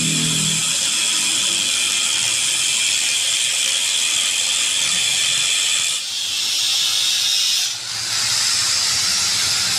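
Steel being machined at a metalworking shop: a loud, steady, high-pitched hissing screech that shifts in tone about six seconds in and dips briefly near eight seconds.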